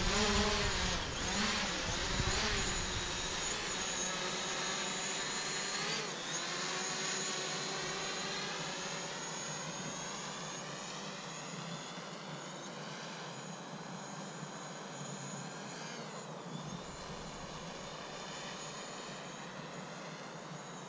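DJI Mavic Pro quadcopter's propellers whining in flight, the pitch gliding up and down as it manoeuvres, with a dip and rise near the end. The whine slowly fades as the drone moves away. A low rumble sits under it in the first few seconds.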